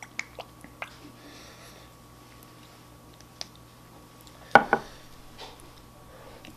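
A small glass Tabasco bottle shaken over a bowl of fried rice, giving a few light clicks and taps, then a sharp double knock about four and a half seconds in as the bottle is set down on the wooden table.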